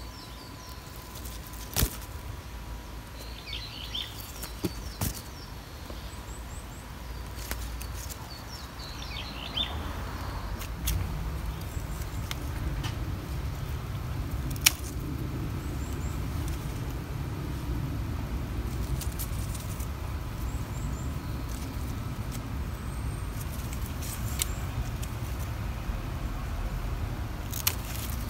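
Outdoor garden ambience: small birds chirping a few times in the first ten seconds, with a handful of sharp clicks. From about ten seconds in, a steady low rumble rises and runs underneath.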